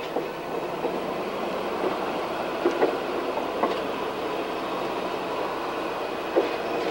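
Railroad car rolling along the track: a steady rumble of wheels on rails, broken by a few sharp, unevenly spaced clicks as the wheels cross rail joints.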